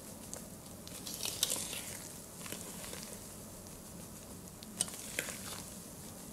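Wire whisk gently folding beaten egg whites into cake batter in a bowl: soft, wet swishing, with a few light clicks of the whisk against the bowl.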